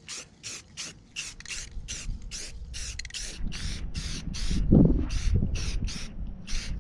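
Rust-Oleum camouflage spray paint can hissing in short, quick bursts, about three a second. Wind gusts rumble on the microphone from about a third of the way in, loudest just past the middle.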